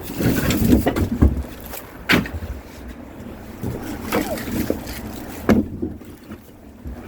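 Wind buffeting the microphone with a low rumble, broken by a few sharp knocks and thuds.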